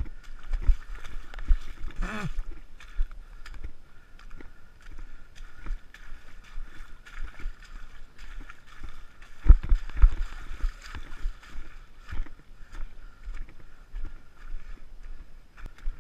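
Footsteps squelching and splashing through muddy puddles at a walking pace, with a few heavier splashes about halfway through.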